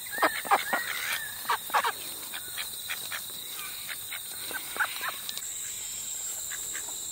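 Ducks giving a run of short, soft quacks, bunched in the first two seconds with a few more about five seconds in, over a steady high-pitched drone of insects.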